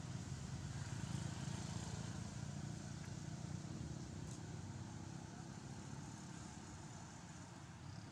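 Low rumble of a motor vehicle engine, loudest a second or two in and then slowly fading.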